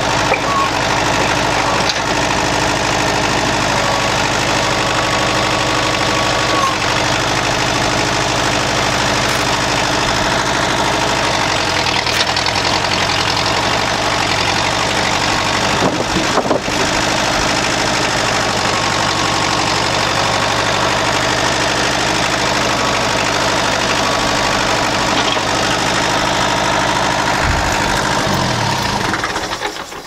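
Kubota L285 tractor's diesel engine running steadily as its forks work a heavy sawn slab onto a pile, with a knock of timber about halfway through. The engine sound drops away near the end.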